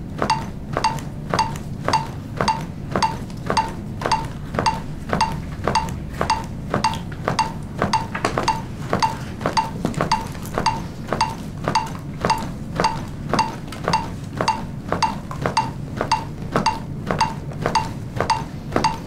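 CPR metronome ticking steadily, a little under two sharp ticks a second (about 110 a minute), each with a short ringing beep, pacing the chest compressions.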